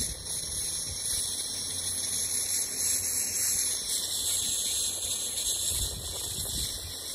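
Laser marking machine working through a long marking job: a steady, high-pitched hiss.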